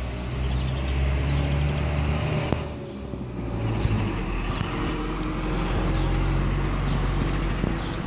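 Street traffic: a vehicle's engine rumble that fades out about three seconds in, then a second rumble that builds and holds. A few short high chirps sound over it.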